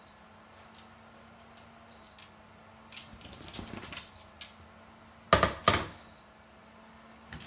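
A long-haired miniature dachshund's claws scrabbling and clicking on a wooden floor as it runs out, followed by two sharp loud thumps about half a second apart. A short high electronic beep repeats about every two seconds throughout.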